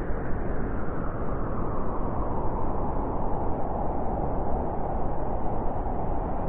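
Steady, deep rushing sleep white noise, heavy in the lows with little treble. Its tone grows a little brighter partway through.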